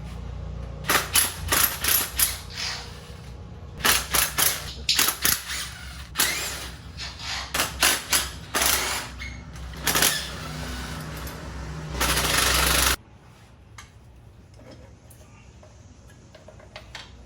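Bolts being worked loose with an 11 mm deep socket: repeated bursts of rapid metallic clicking and rattling, ending in a louder continuous burst that cuts off abruptly about 13 seconds in.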